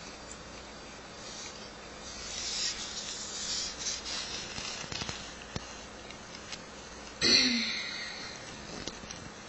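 Small dog licking and nibbling at its own hindquarters: soft wet licking sounds, busiest in the first half, with one short, louder burst of noise about seven seconds in.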